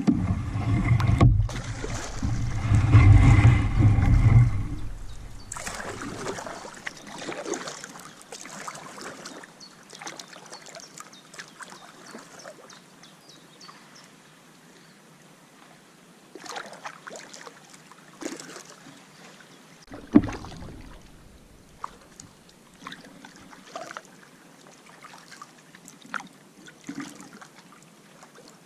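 Kayak paddling: the paddle dipping and splashing in the river, with water trickling and dripping between strokes. A loud low rumble fills the first five seconds, and a single sharp thump comes about twenty seconds in.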